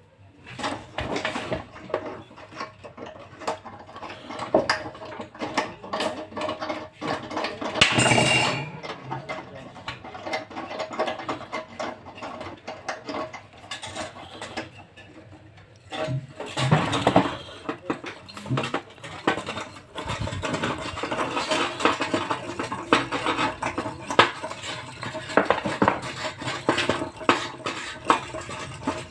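Clicks and clattering of small hard parts and tools being handled during a room heater repair, with a brief louder noisy burst about eight seconds in.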